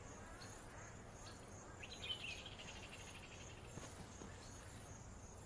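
Faint natural outdoor ambience: a low steady background hiss with faint insect chirring and a brief high trill about two seconds in.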